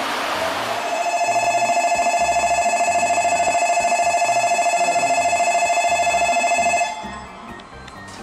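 Station platform warning bell ringing steadily for about six seconds, then cutting off suddenly. The rushing noise of a passing train fades out under it at the start.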